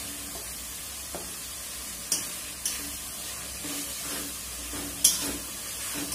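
Onion-tomato masala frying and sizzling steadily in a metal kadai while a metal spatula stirs it. There are a few sharp metal clinks about two seconds in, and a louder one just after five seconds.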